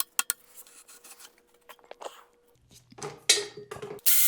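Hand tools clinking and scraping on metal engine parts as the alternator is worked off: scattered light clicks, then a louder clank about three seconds in.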